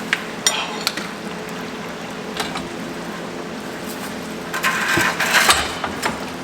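Scattered sharp metallic clicks and knocks, building to a rattling clatter about four and a half seconds in, over a steady hiss.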